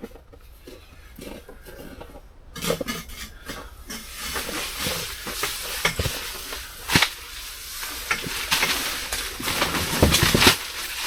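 Handling noise: rustling with several sharp knocks, starting about two and a half seconds in.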